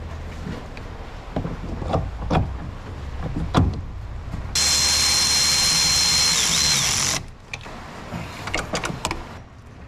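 Metal clunks as the brake master cylinder is set onto a new hydroboost unit. Then a power tool runs steadily for about two and a half seconds, with a high whine that dips once, and stops abruptly. Quick clicks follow near the end as a hand wrench works the mounting nuts.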